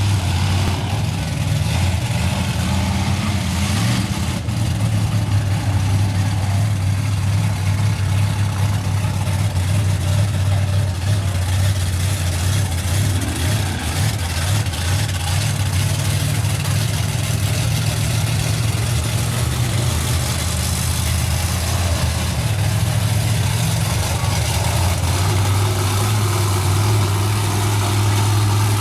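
Mud truck engine running steadily at a low, deep idle, with a haze of outdoor noise over it.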